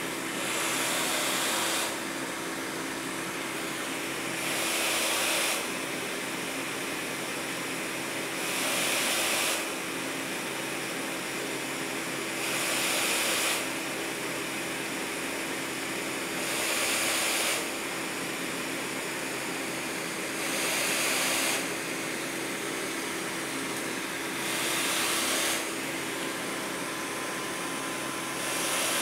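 Healthdyne Quantum PSV pressure support ventilator running, its blower humming steadily with a louder rush of air for about a second every four seconds as it delivers each breath, about fifteen breaths a minute. The air is pushed into a partly taped-over outlet that stands in for a patient.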